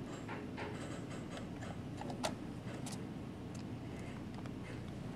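A few light clicks and taps of a plastic DB37 cable connector being handled and pushed onto a digital module's port, over a steady low background hum.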